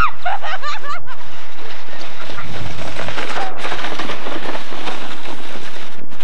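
Children shrieking and shouting in the first second, over a loud, steady rushing noise that carries on to the end.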